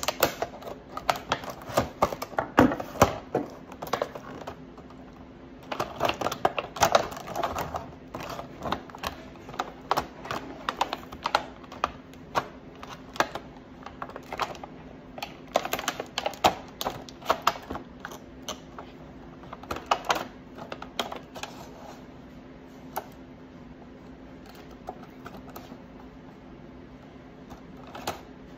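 Scissors cutting and crinkling a hard plastic blister pack and its cardboard backing card: irregular bursts of sharp clicks and crackles that thin out over the last several seconds.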